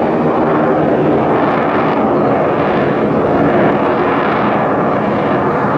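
BAC Strikemaster jet trainer's Rolls-Royce Viper turbojet, loud and steady as the jet flies a display manoeuvre close by.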